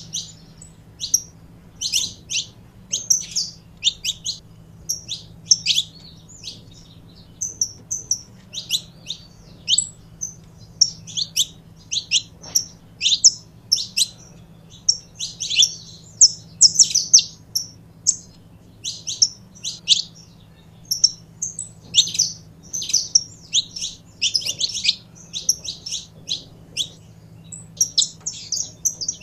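Saffron finch singing: a long run of quick, high chirping notes in short bursts, with brief pauses between phrases.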